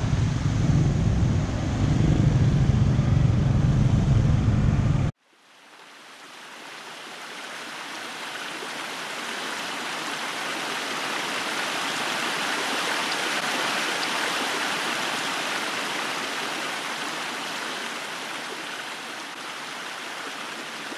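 A loud low rumble cuts off abruptly about five seconds in. A steady rush of flowing water then fades in and swells, easing slightly near the end.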